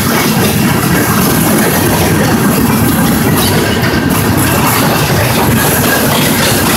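Freight train of empty intermodal container well cars rolling past, a loud steady noise of steel wheels running on the rails.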